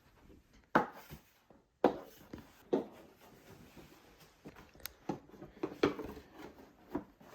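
A briefcase being opened and handled: a handful of sharp knocks and clicks, roughly a second apart, with faint rubbing and shuffling between them.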